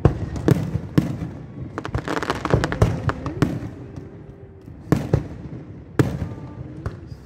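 Fireworks going off: a dozen or so sharp bangs at irregular intervals, with a quick run of crackling pops about two to three seconds in.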